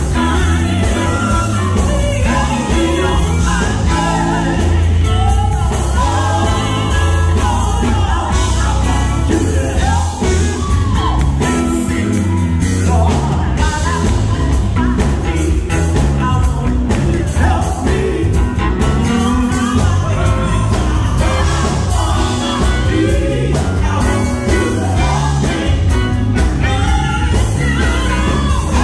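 Live vocal group singing over an amplified band, with a strong, steady bass line underneath.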